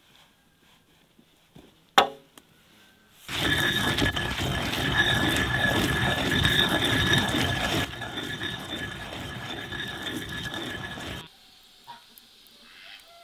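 A single sharp knock, then a wooden pestle grinding against a stone mortar: a loud gritty scraping with a steady squeal, lasting about eight seconds, quieter in its second half.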